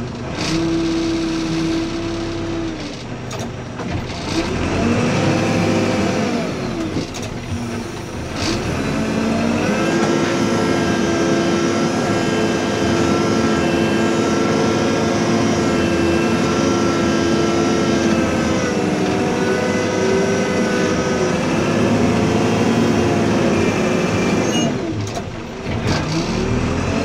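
Backhoe loader's diesel engine working under load as the front bucket scrapes and lifts wet soil. The engine revs up and down a few times, with a steady stretch in the middle.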